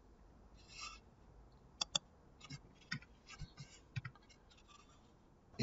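Faint computer mouse clicks, a few short ones scattered over several seconds, with a soft hiss about a second in.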